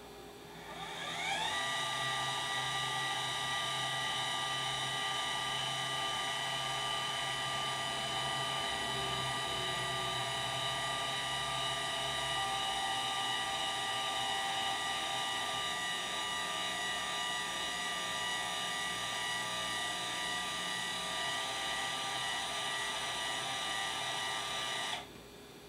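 Celestron CGX telescope mount's motors slewing at full speed to a star: a steady high motor whine that winds up over the first second and a half, holds, and cuts off suddenly near the end.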